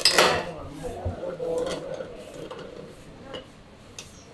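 A sharp metallic clatter, then a few lighter metal clinks, as metal tools and parts are handled, with faint voices in the background.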